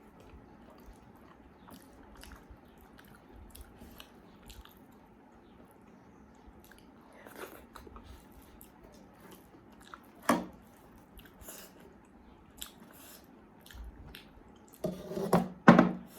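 Close-up eating sounds: a person chewing and biting a meal of nettle dhido and spicy potatoes, with soft wet mouth clicks. There is a sharper click about ten seconds in and a louder burst of sound near the end.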